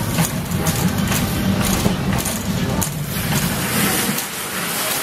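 Wire shopping trolley rolling along, its wheels rumbling and the metal basket rattling with many small clicks.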